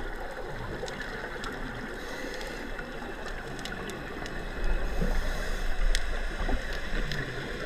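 Underwater ambience during a scuba dive: a steady muffled hiss with scattered faint clicks. From just past halfway it turns into a louder, low bubbling rumble, the sound of a diver's exhaled regulator bubbles.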